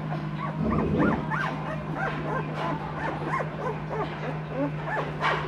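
Two-week-old Noble Asian Bear puppies (Tibetan Mastiff, American Akita and Caucasian Ovcharka cross) whimpering and squeaking together in many short, overlapping rising-and-falling cries. A steady low hum runs underneath, and there is a dull bump about a second in.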